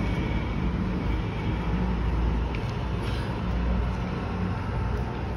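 A steady low background rumble, with a couple of faint clicks about two and a half and three seconds in.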